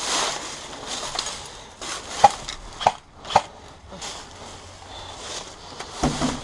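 Footsteps crunching over rough ground, with three sharp snaps or cracks a little over two seconds in.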